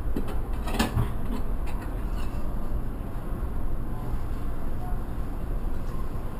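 Distant jet airliner climbing out after takeoff, a steady low rumble mixed with wind buffeting the microphone. A brief click comes about a second in.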